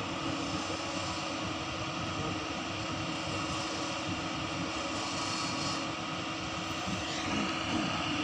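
Heavy diesel engine running steadily, a constant drone with a low hum. A brief rising whine comes in about seven seconds in.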